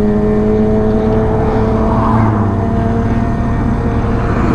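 1983 Suzuki GS1100E's air-cooled inline-four engine running at a steady pitch while the bike is ridden, with a small change in pitch about two seconds in.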